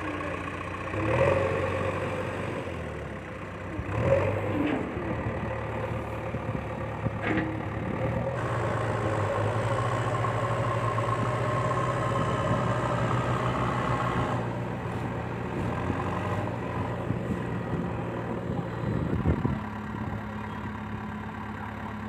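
Remote-control toy backhoe loader running, with a steady engine-like hum and brief louder swells as the loader arm moves and lifts its bucket of soil.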